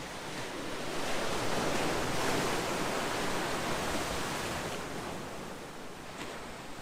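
Calm sea waves: one wave swells in about a second in and fades away over the last couple of seconds.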